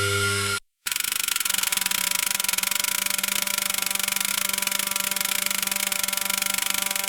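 Hay baler engine running at a steady speed, with a fast, even firing beat and a dense mechanical hiss. It starts just under a second in, after a short silence that cuts off a different steady hum.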